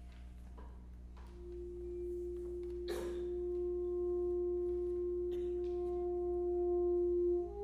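Alto saxophone holding one long, soft, pure-sounding note that swells in about a second in and is held almost to the end, with a single sharp struck sound about three seconds in. A steady low hum lies beneath.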